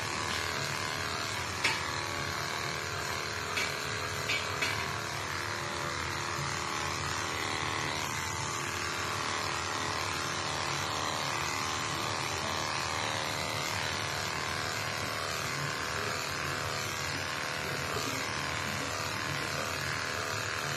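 Electric pet hair clippers running steadily as they shave through a long-haired cat's fur, with a few light clicks in the first five seconds.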